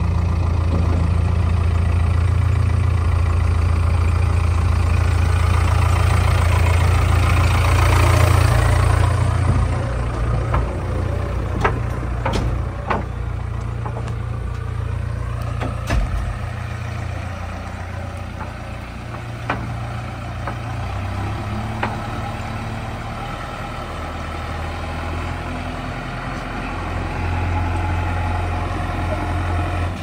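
JCB 3DX backhoe loader's diesel engine running, working hard and swelling in the first nine seconds or so, then settling to a lower steady run. A handful of sharp knocks stand out over the engine in the middle stretch.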